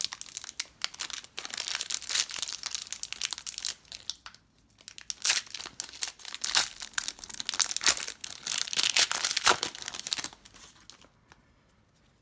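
Foil trading-card pack wrapper crinkling and being torn open, in two stretches with a short pause about four seconds in; it stops about two seconds before the end.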